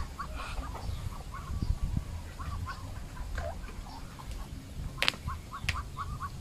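Muscovy ducks calling in short, repeated chirps in quick runs of about four a second, with two sharp clicks about five seconds in.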